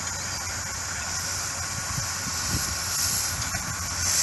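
Miniature live-steam locomotive pulling away, steam hissing from around its cylinders and getting louder about three seconds in, with a few soft low chuffs.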